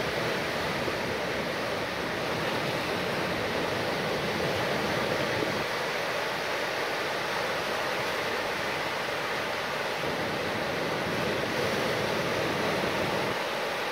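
Small sea waves breaking and washing over a sandy, rocky shore: a steady, even rush of surf.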